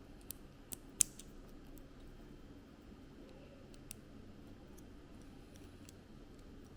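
A few small, sharp plastic clicks from building-block pieces being handled, the loudest about a second in, over a faint steady hum.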